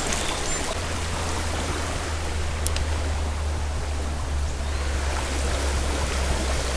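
Steady rush of flowing creek water, with a low rumble underneath and a single light click about two and a half seconds in.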